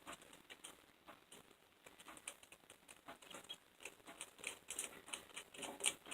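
Light clicks and taps from the parts of a taken-apart Black & Decker grinder being handled, faint at first and coming more often and louder in the last couple of seconds.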